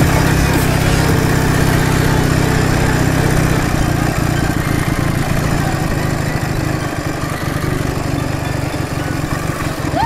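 Ural motorcycle's air-cooled flat-twin engine running steadily while riding, a little quieter from about four seconds in.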